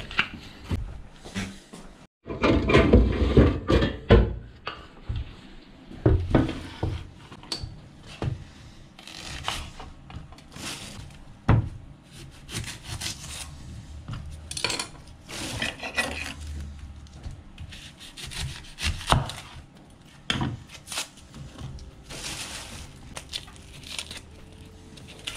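Kitchen knife cutting and peeling a red onion on a wooden cutting board: scattered knocks of the blade on the board and scraping and rubbing of the skin, with a louder burst of handling noise a few seconds in.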